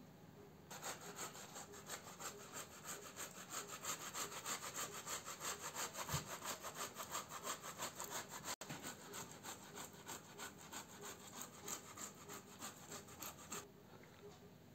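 Carrot being grated on a metal box grater: quick, even rasping strokes that start about a second in and stop shortly before the end.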